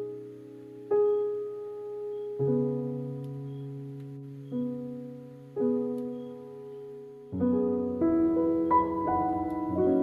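Background piano music: slow chords, each struck and left to fade, with quicker notes coming in near the end.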